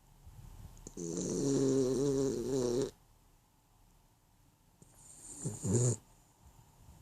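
Sleeping dog snoring: two snores, a long one with a wavering pitch about a second in and a shorter one near the end.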